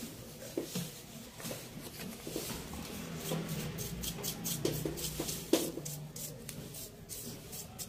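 A brush scrubbing dust off a laptop's heat sink and motherboard: a run of quick, irregular scratchy strokes, with a few light knocks, the sharpest about five and a half seconds in.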